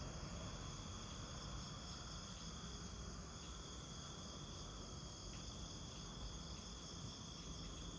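Night insect chorus: several steady, high-pitched trills at different pitches running without a break, over a faint low rumble.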